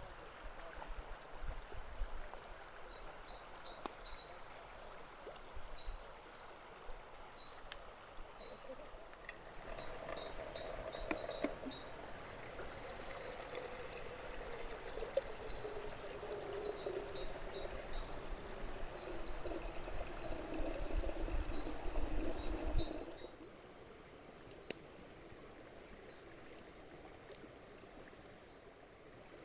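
A small bird chirping repeatedly, short rising chirps about once a second. From about ten seconds in, water is poured or runs steadily for some thirteen seconds, then stops suddenly.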